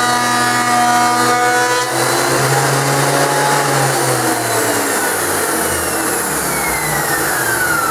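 Metabo DH330 benchtop thickness planer running, then cutting a board from about two seconds in: a loud rush of planing noise, with the motor's whine slowly sinking in pitch under the load. The newly fitted feed roller is pulling the board through as it should.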